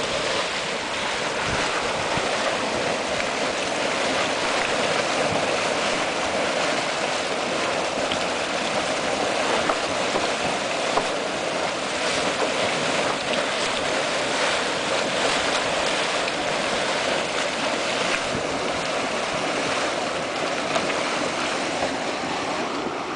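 Yellowstone's Mud Volcano, a hot, steaming mud pool, churning with a steady rushing, sloshing noise and a few faint pops.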